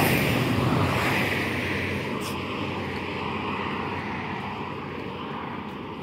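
A motor vehicle passing on the road, loudest at the start and then fading steadily as it drives away.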